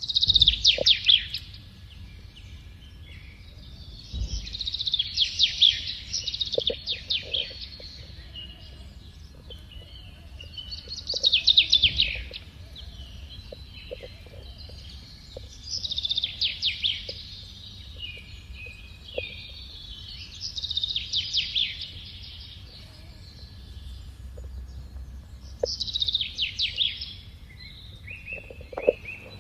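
Songbird singing, repeating a short, rapid high phrase every four to five seconds.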